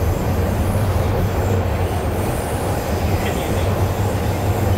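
Subway train running, heard from inside the passenger car: a steady low rumble with rail and wheel noise.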